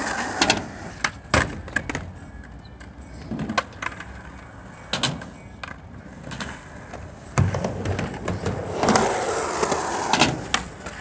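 Skateboard wheels rolling on concrete, with sharp clacks of boards popping and landing at intervals. The rolling gets louder for a few seconds from about two-thirds of the way in as a skater rides close by.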